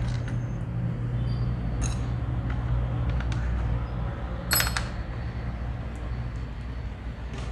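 Small metal sewing-machine parts clinking as they are picked up and handled, a few sharp clinks with the loudest about four and a half seconds in, over a steady low hum.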